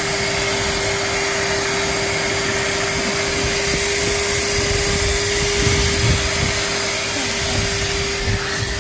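Vacuum cleaner running steadily, its motor giving a constant hum over the rush of suction, as it cleans the car. A few soft knocks come in the second half, as the nozzle bumps against surfaces.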